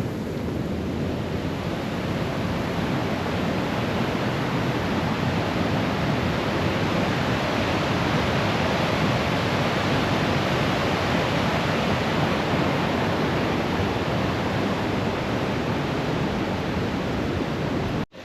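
Steady rush of fast-flowing river water, the Aare, building slightly over the first few seconds and then holding even. It cuts off suddenly near the end.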